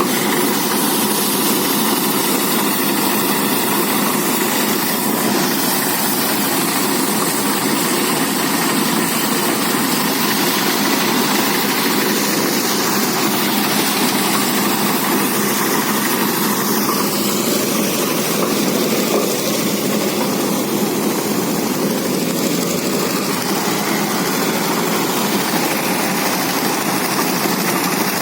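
Motorised rice threshing machine running steadily, a loud, even mechanical drone.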